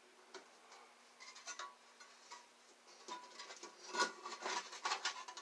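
Light clicks and rubbing of a computer power supply's metal case and top cover being handled and fitted, sparse at first and busier over the last two seconds.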